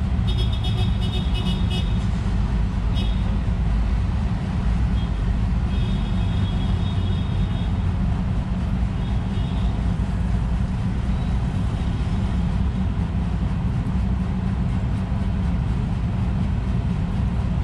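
Small birds chirping in short clusters, mostly in the first half, over a steady low rumble.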